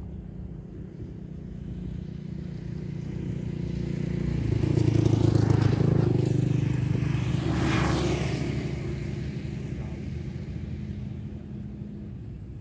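A motor vehicle passing by. Its engine and road noise swell to their loudest about halfway through, with a second crest shortly after, then fade away.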